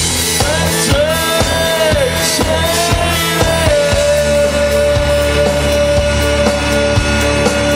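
Rock music with drums and bass, and a melody line that bends in pitch and then holds one long note.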